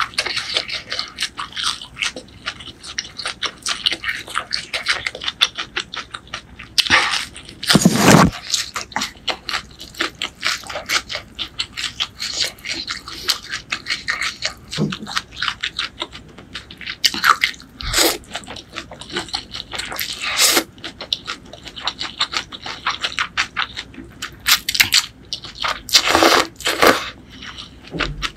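Close-miked eating of pork noodle soup: a steady stream of wet chewing and mouth clicks, with several louder slurps of rice noodles spread through.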